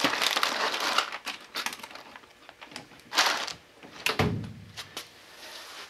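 Handling noises: rustling and crackling, then a few scattered knocks, a dull thump and some light clicks while a blown fuse is swapped out of an inline fuse holder on a 12-volt pump test rig. The pump is not running.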